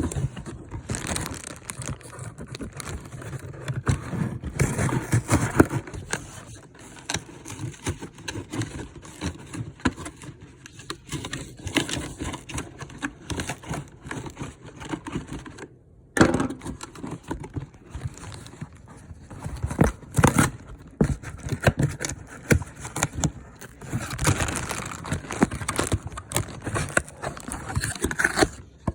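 Knife scraping and cutting through cardboard packaging, with tearing and crinkling as the packing is worked loose and pulled apart. A brief lull comes just before the middle, then a sharp knock.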